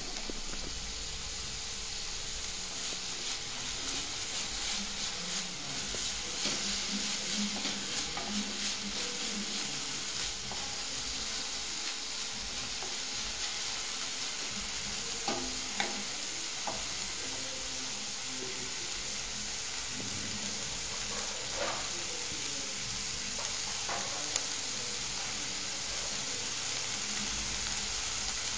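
Food sizzling and crackling as it fries in a pan, with a few sharp knocks of a utensil against the pan.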